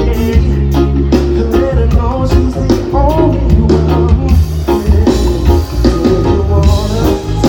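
Live reggae-pop band playing loudly through a festival sound system: heavy bass, guitar and drums with a male lead voice singing over them.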